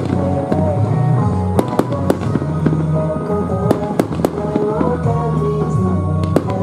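Aerial firework shells bursting, a quick irregular series of sharp bangs and pops, over music with long held notes and a steady bass line.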